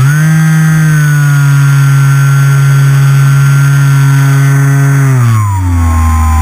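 NTM Prop Drive 35-42A 1250Kv brushless motor spinning a Master Airscrew 10x7 three-blade pusher propeller, heard up close from the plane's onboard camera. Its pitch rises sharply as the throttle opens at the start, holds steady for about five seconds, then falls back as the throttle is eased near the end.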